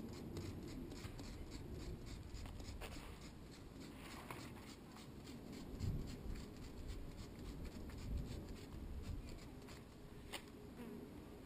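Hand trigger spray bottle squirting soapy water onto the sticky side of a vinyl window sticker, pumped again and again in short faint spurts. It is a cheap bottle that sprays poorly. A low rumble runs underneath.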